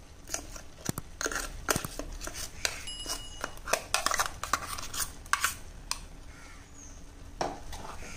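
Steel spoon clicking and scraping against a cooking pot as ground coconut paste is scooped out and spread onto cooked papaya, with a quick run of clicks for the first six seconds or so, then fewer.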